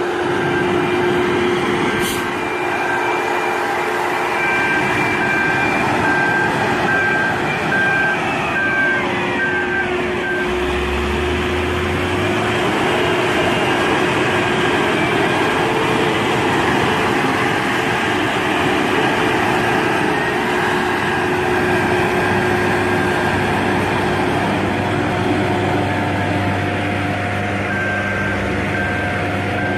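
Heavy road-construction machinery running, with a reversing alarm beeping in an even on-off pattern for about the first third and again near the end.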